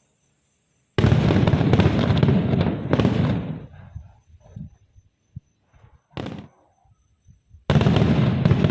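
Aerial fireworks going off: a sudden loud burst with dense crackling about a second in, a short pop about six seconds in, and another loud crackling burst near the end.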